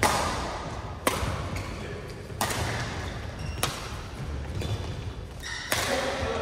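Badminton rackets striking a shuttlecock back and forth in a rally: five sharp cracks a second or two apart, each echoing briefly in a large hall.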